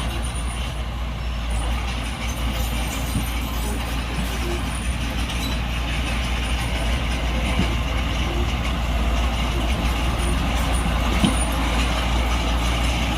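Heavy diesel engine of earthmoving machinery running steadily, a deep continuous hum.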